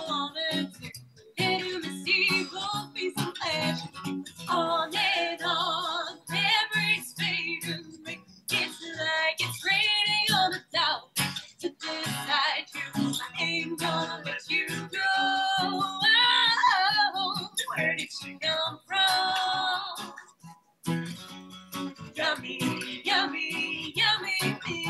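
A live song: a voice singing over guitar, with a brief break about three-quarters of the way through.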